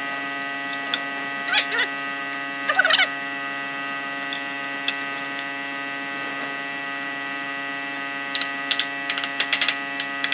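Wooden boards being handled and fitted together on a concrete floor: two brief scrapes of wood sliding on wood early on, then a quick run of light knocks and taps near the end, over a steady hum.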